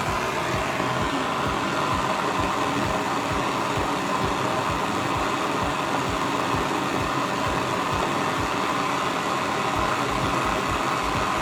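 Handheld soldering torch flame burning steadily while it heats a copper pipe fitting for soldering. It runs at an even level with a fluttering low rumble.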